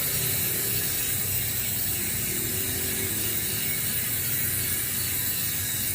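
Bicycle rear hub with four pawls freewheeling as the wheel spins: a steady, rapid ratcheting buzz of the pawls clicking over the ratchet ring.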